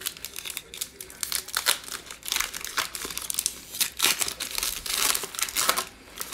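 Foil wrapper of an Illusions football trading-card pack being torn open and crinkled by hand: irregular crackling rustles and tearing that die down near the end.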